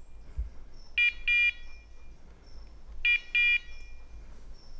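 An English setter's beeper collar in point mode: pairs of high electronic beeps, one pair about every two seconds, two pairs here. The repeating beep is the signal that the dog is standing still on point.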